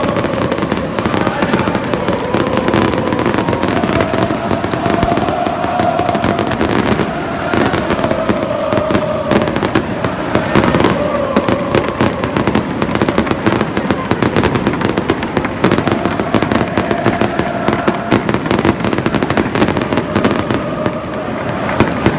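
Fireworks crackling and popping in rapid, continuous volleys, with a large stadium crowd singing in unison underneath.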